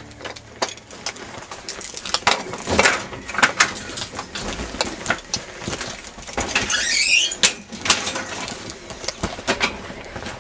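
Bicycle being ridden over a rough track: irregular rattling clicks and knocks throughout, with a brief wavering squeal about seven seconds in.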